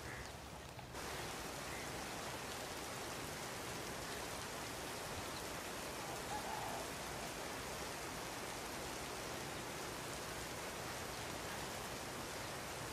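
Steady rain falling, an even hiss that settles in about a second in and holds without change.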